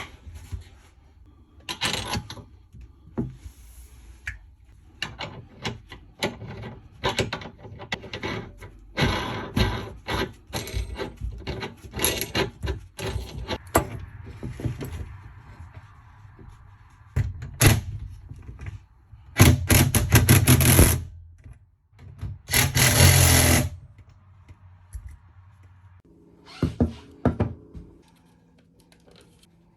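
Hands-on work on wooden cabinets: a quick run of knocks, thunks and short scrapes of wood being handled and fitted. Two loud noisy bursts, each a second or two long, come about two-thirds of the way through.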